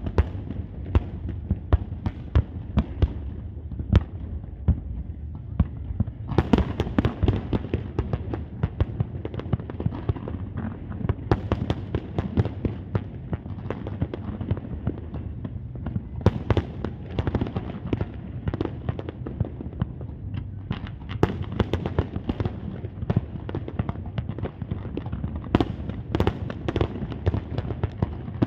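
Fireworks display: a continuous barrage of bangs and crackles, getting denser and louder about six seconds in.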